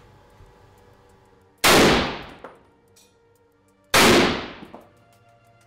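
Two rifle shots about two seconds apart, each a sharp crack followed by a long echo that dies away over about a second: a rifle being zeroed in with a new scope.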